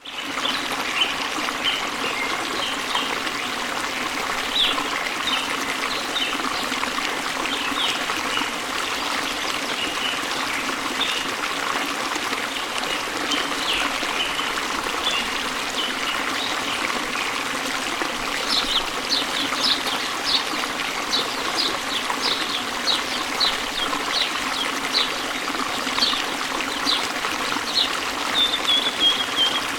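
Running water of a stream trickling steadily, with many short high chirps over it that come more often in the last third.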